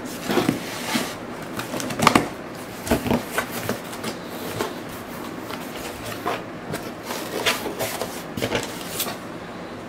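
Cardboard shipping box being opened by hand: flaps bent back and rubbing, and scissors cutting through the cardboard, making irregular rustles, scrapes and knocks.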